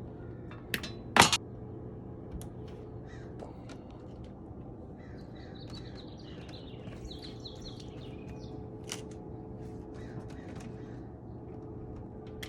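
Scattered sharp knocks and clicks from hands-on installation work, with one loud knock about a second in, over a steady low hum. Midway there is a run of short, harsh repeated calls.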